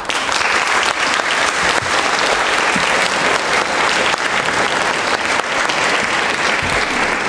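Crowd applauding: many hands clapping in a dense, even patter.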